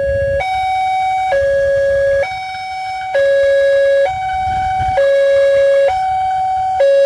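Railway level-crossing warning alarm sounding with the barrier down, a loud electronic two-note signal. The lower and higher notes alternate without pause, each held just under a second, warning that a train is approaching.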